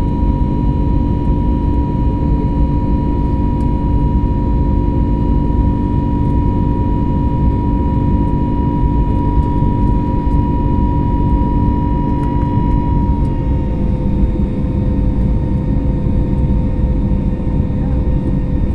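Cabin noise of an Airbus A321neo LR under power: a steady deep rumble with a high engine whine and several steady tones over it. About thirteen seconds in, the whine drops slightly in pitch and some of the lower tones fade, a sign of an engine power change.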